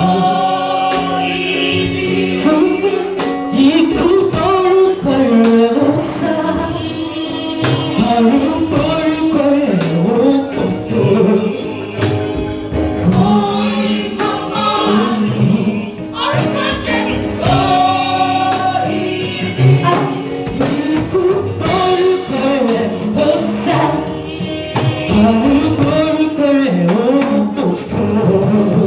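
Women's church choir singing a Yoruba-language gospel song through microphones, with drums keeping the beat.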